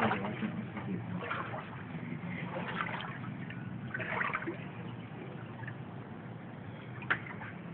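Shallow floodwater sloshing and trickling as someone wades through it, with a few brief splashes of footsteps.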